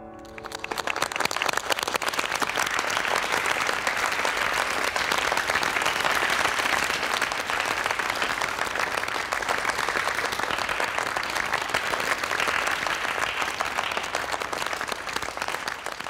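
A large audience applauding: clapping breaks out as a piano note dies away, swells over the first couple of seconds, holds steady and starts to thin near the end.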